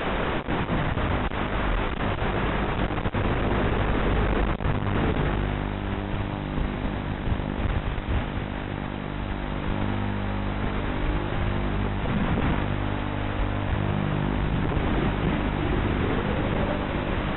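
5-inch racing quadcopter's brushless motors (EMAX 2205 2600 kV with tri-blade props) running at changing throttle, under a steady hiss with brief crackles of analog radio static. The motor pitch glides up and down, rising near the end.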